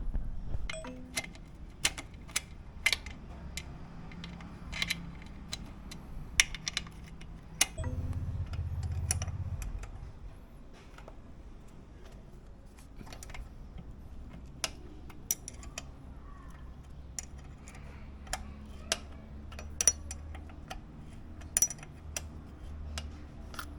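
Scattered sharp metallic clicks and clinks of tools and brake parts being handled, with a low rumble for about two seconds some eight seconds in.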